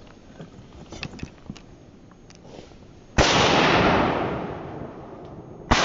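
Two shotgun shots about two and a half seconds apart, each a sudden loud report whose sound trails away over a couple of seconds; the second comes near the end.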